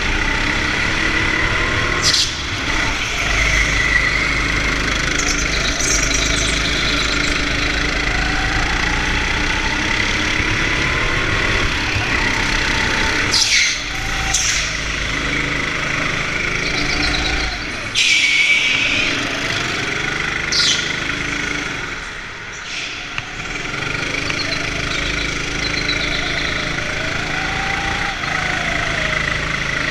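Go-kart motor running and rising and falling in pitch through the corners, heard from on board the kart, with several short sharp noises along the way.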